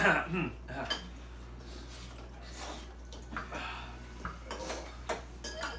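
Cutlery clinking and scraping against bowls as ramen noodles are eaten, in short irregular clicks.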